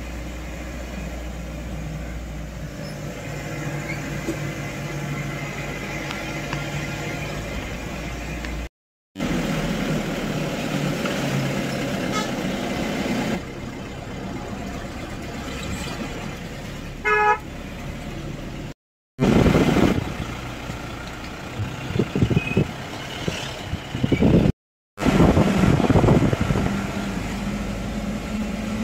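Car driving on a winding hill road, heard from inside: steady engine and tyre noise, with a short horn toot about two-thirds of the way through. The sound drops out to silence three times for a moment, and there are louder bursts of noise in the last third.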